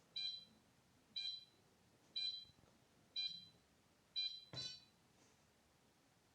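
Electronic beeper of an airsoft timer-bomb prop giving five short, high beeps about once a second, the tick of its countdown, followed by a sharp click near the end.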